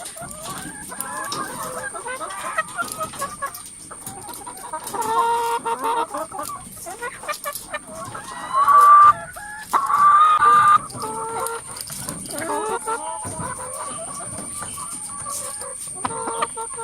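A flock of hens clucking and calling over one another. About halfway through, two loud drawn-out calls stand out above the clucking.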